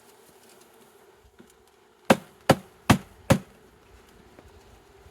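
Four sharp knocks in quick, even succession from a bee package box being banged to jar the last bees out into the hive. A faint steady hum of bees runs underneath.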